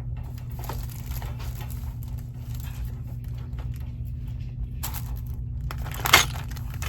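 Rustling and crinkling from items being handled, over a steady low hum, with two sharp knocks about five and six seconds in, the second louder.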